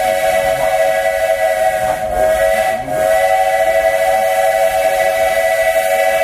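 Steam locomotive's whistle sounding one long blast, a chord of several steady tones with some hiss, with a short dip about three seconds in; it cuts off near the end.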